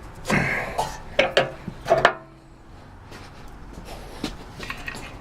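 Metal knocks and clanks from handling the cover of an old floor-standing pillar drill: a brief scrape, then three sharp clanks with a short metallic ring within the first two seconds, followed by a few light clicks.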